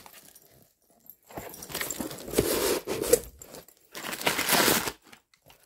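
Crumpled brown kraft packing paper rustling and crinkling as a hand digs through it in a cardboard box, in two spells of a second or two each.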